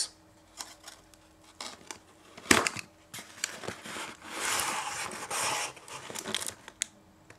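Cardboard shipping box handled and its unsealed lid flap pulled open by hand, with a sharp knock about two and a half seconds in. This is followed by a couple of seconds of cardboard scraping and rustling.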